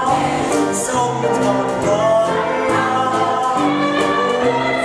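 Stage-musical song: a chorus of young voices holding long notes over instrumental accompaniment with percussion.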